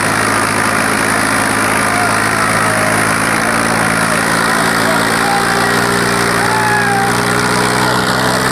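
Diesel tractor engine running hard under heavy load while pulling harrows, a steady drone whose pitch creeps up slightly about five seconds in.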